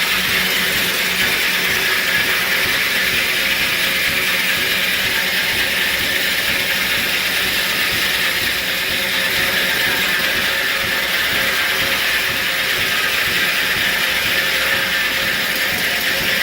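1870s-era sawmill machinery running with a loud, steady mechanical noise, a high hiss with faint hum beneath it, unbroken throughout.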